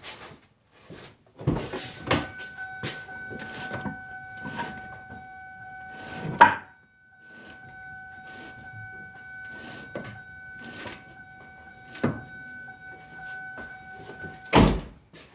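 Clinks and knocks of hand tools and metal parts being handled on a car's front wheel hub and brake assembly, with a sharp knock about six seconds in and a heavier thud near the end. A steady high-pitched tone sounds underneath for most of the time.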